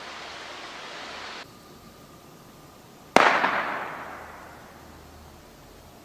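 A single gunshot about three seconds in, its report echoing and dying away over about two seconds.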